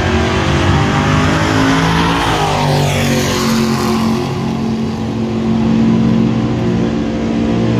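Supercharged front-engine dragster engines idling loudly as the cars roll slowly past, one engine's pitch falling as it goes by about three seconds in.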